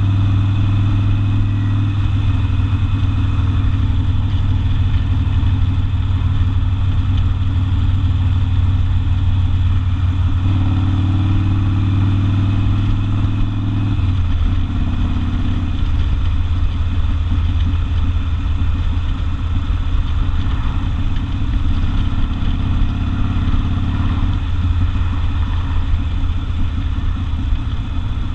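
Harley-Davidson Sportster's V-twin with open exhaust, heard from the rider's seat while under way. The engine note stays loud and steady, stepping up or down in pitch a few times as the revs change.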